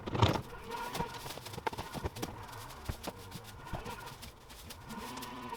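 Irregular knocks and clatter, with the loudest knock about a quarter-second in, over a faint steady hum.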